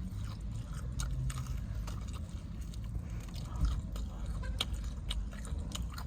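Close-up chewing and biting of fried chicken, with many short, irregular crunchy mouth clicks.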